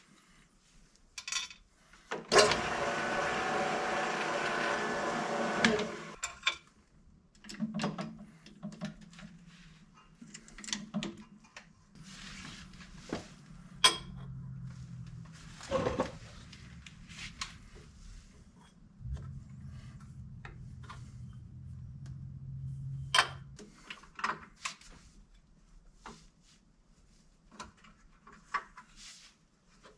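Tools and parts being handled on a bench: scattered clicks and knocks, a loud buzz lasting about four seconds early in the stretch, and two later spells of low steady hum.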